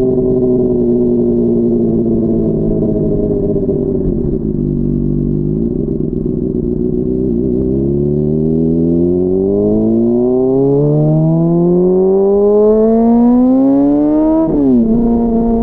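Honda CBR600RR's inline-four engine heard while riding. The revs fall away over the first few seconds, then climb steadily in a long pull from about eight seconds in, drop sharply at an upshift near the end and settle to a steady note.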